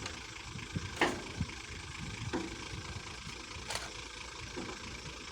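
Hitachi excavator's diesel engine running steadily, with a few sharp knocks about one, two and three and a half seconds in, the first the loudest.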